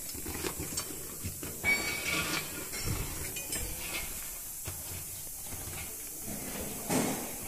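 Handling noise from a patched rubber inner tube being worked back into a large tractor tyre: scattered knocks and rubs over a steady hiss, with a short squeak about two seconds in and a louder knock near the end.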